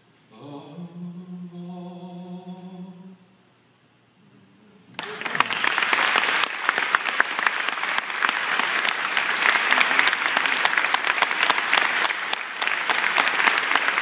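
A man's voice holds a long final sung note, ending about three seconds in. After a brief hush, the congregation bursts into steady applause about five seconds in.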